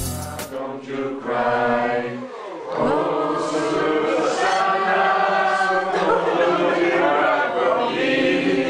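A group of voices singing together.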